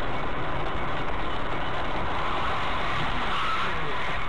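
Steady road and wind noise of a car driving at speed, heard from inside the cabin through a dashcam microphone.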